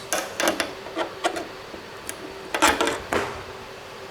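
Clicks and knocks of a DMX cable's metal XLR plug being handled and plugged into a socket on a DMX splitter, in a few short clusters, over a faint steady hum.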